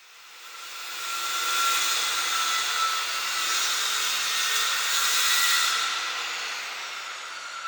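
A power tool working wood: a steady hissing run with a faint whine in it, swelling in over the first two seconds and fading away from about six seconds in.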